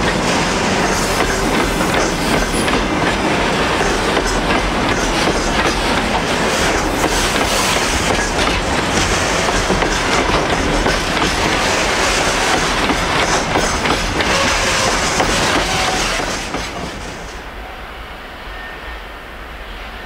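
Freight train of open-top gondola wagons rolling past close by on a curved track, the wheels clattering on the rails. The sound drops off and fades about three-quarters of the way through as the end of the train passes and moves away.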